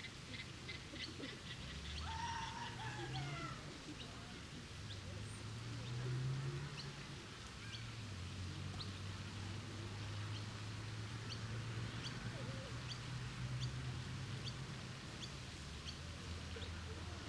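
Park ambience with small birds chirping: many short, high chirps scattered throughout, and a longer call falling in pitch about two seconds in. A steady low rumble runs underneath.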